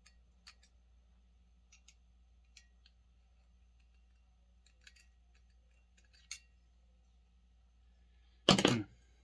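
Scattered light clicks and taps of small chainsaw parts being handled, then one louder clatter lasting about half a second near the end.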